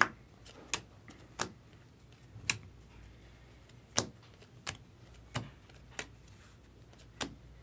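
Stack of chrome baseball cards being flipped through by hand, one card at a time, each card making a sharp snap against the stack, about nine snaps in all at an uneven pace.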